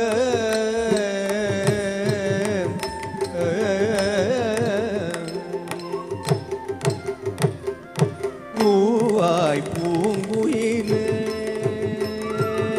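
Carnatic music accompaniment: an ornamented melody with sliding, wavering pitch over a steady drone, with regular drum strokes. The melody breaks off briefly after about eight seconds, then comes back with a sharp swooping phrase.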